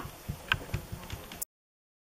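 Handling noise from a plush hand puppet being moved about: several soft knocks and thumps with faint rustling, which cut off suddenly to dead silence after about a second and a half.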